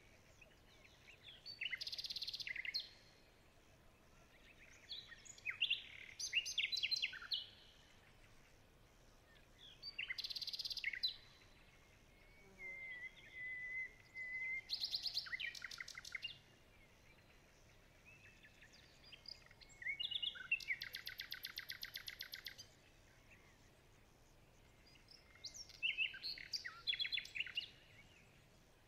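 Birds singing: short phrases of high chirps and whistles every few seconds, including one held whistle and a fast, even trill of about two seconds about two-thirds of the way through.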